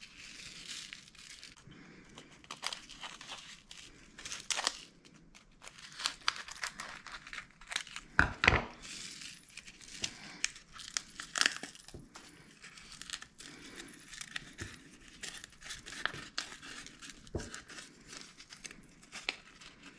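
Dried ancho and guajillo chilies crackling and tearing as they are pulled open by hand and seeded over a bowl. The crackles are irregular, with one louder crack about eight seconds in.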